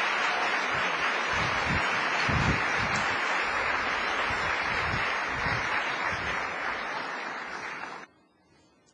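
Audience applauding steadily, then cutting off suddenly about eight seconds in.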